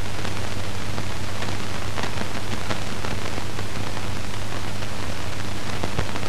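Steady hiss and low mains-type hum of an old film soundtrack, with faint scattered crackles.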